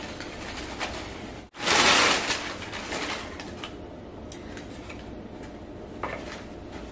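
Rustling of packing paper and handling of wooden wall shelves, loudest for about a second just after a brief dropout a little over a second in.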